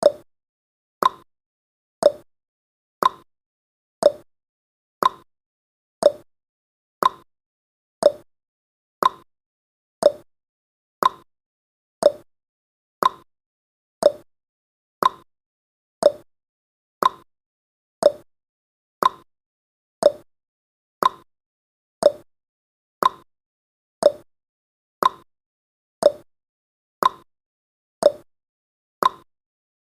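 Countdown timer's ticking sound effect: one short, clock-like tick every second, evenly paced.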